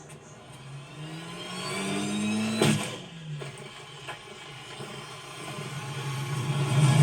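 A motor vehicle's engine revving, its pitch rising and falling, with a sharp bang about two and a half seconds in, then revving up louder near the end.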